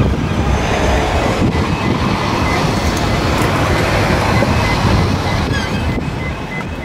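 Loud, steady outdoor rumble, with wind buffeting the microphone over general crowd and traffic noise.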